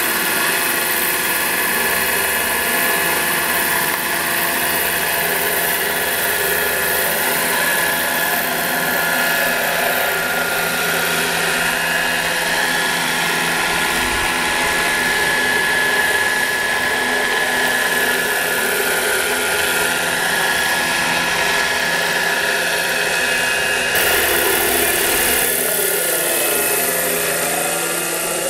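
Large radio-controlled scale Bell 407 model helicopter flying: a steady high whine from its motor and drivetrain over the beat of the rotor blades. Near the end the pitch of the whine dips and rises as it passes overhead.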